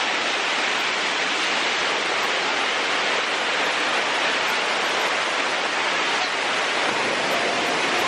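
Waterfall water rushing and splashing over rock terraces close to the microphone: a steady, loud, even rush of water.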